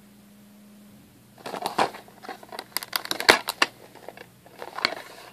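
Plastic DVD case being handled and opened: crackling and clicking of the plastic that starts about a second and a half in, with one sharp, louder click near the middle.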